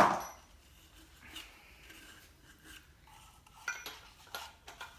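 A sharp metallic clank with a short ring, then scattered light clinks and scrapes of metal tools and parts being handled during an engine teardown.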